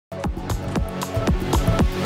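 Electronic intro music with a fast, steady beat of punchy drum hits.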